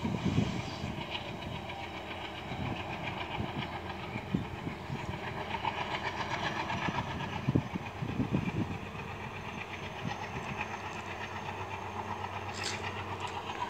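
Passenger train running along the track, a steady rumble with irregular low thumps through it.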